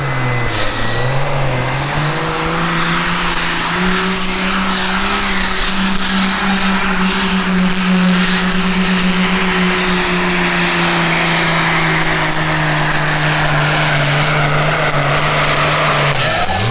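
Case MXM 165 pulling tractor's diesel engine at full throttle under heavy load, dragging a weight-transfer sled. The revs sag as the load comes on, climb back and hold, ease slowly down, then drop sharply near the end as the driver lifts off at the end of a full pull.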